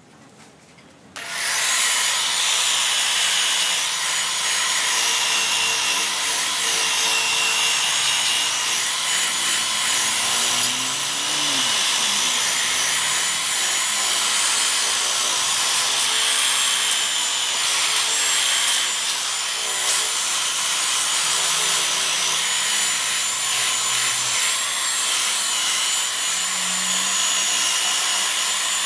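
Electric rotary polisher switching on about a second in, then running steadily with a high whine while its buffing pad works polishing compound over a plastic headlight lens.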